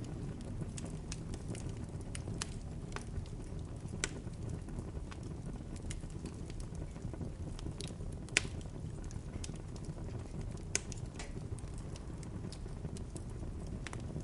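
Bonfire crackling: a steady low rumble of burning with scattered sharp pops and snaps. The loudest pop comes about eight seconds in, and another near eleven seconds.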